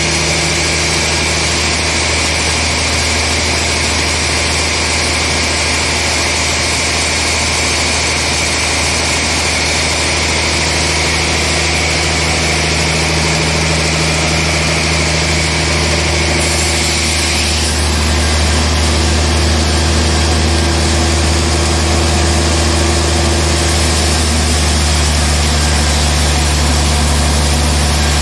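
Large band sawmill running steadily as it slices a trembesi (rain tree) log into a slab: a loud, even machine drone with a low hum and a high whine. A little past halfway the high whine stops and the low hum gets louder.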